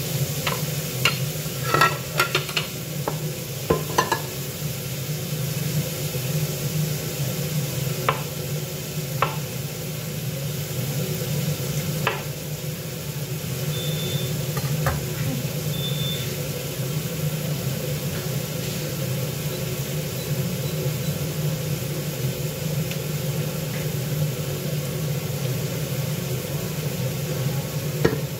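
Chef's knife slicing button mushrooms on a wooden cutting board: scattered sharp knocks of the blade hitting the board, most of them in the first dozen seconds, over a steady low hum and hiss. Two short faint high beeps come about halfway through.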